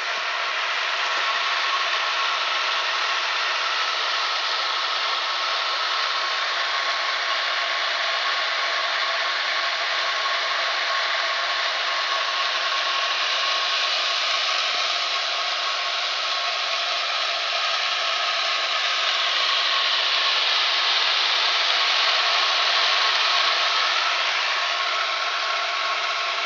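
Steady rush of water pouring from a flush pipe driven by a lawn-sprinkler well pump, flushing sediment out of the line, with a faint steady whine underneath; it swells slightly near the end.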